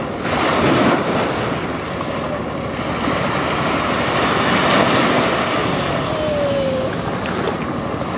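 Sea surf washing in and breaking around the shallows, swelling louder about half a second in and again around five seconds in, with wind buffeting the microphone.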